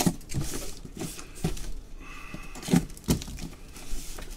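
Cardboard shipping case being handled and opened with gloved hands: scraping and rustling of the cardboard and its flaps, with several soft knocks as the box is turned over.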